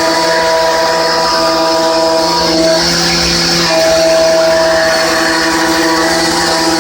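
A Hermle C20U machining centre trochoidal milling with a 16 mm Nachreiner HPC Superstar end mill at 4800 rpm, 30 mm deep and 1 mm wide. The cutting is a loud, steady hum with several held tones, which shift briefly about three seconds in.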